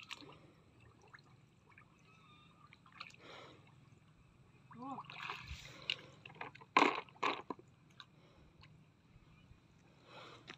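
Muddy water sloshing and splashing as hands grope through a shallow ditch bed for freshwater clams and snails. Two sharp splashes close together about seven seconds in are the loudest sounds.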